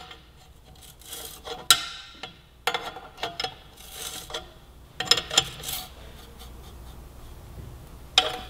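A 17 mm wrench tightening a motorcycle exhaust oxygen sensor into its header bung. It makes clusters of short metallic clicks and scrapes as the wrench is shifted and pulled on the sensor's hex, with a quieter stretch before a last click near the end.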